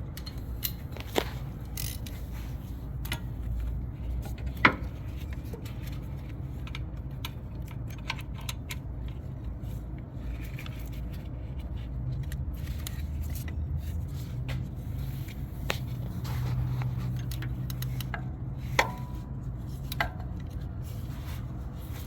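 Scattered metallic clicks, knocks and scrapes from hand tools being handled, over a steady low hum.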